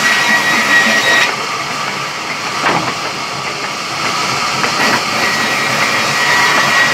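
Sawmill log-cutting saw running, a steady mechanical din with a thin high whine. The whine drops out about a second in, with the overall sound a little quieter, and returns near the end.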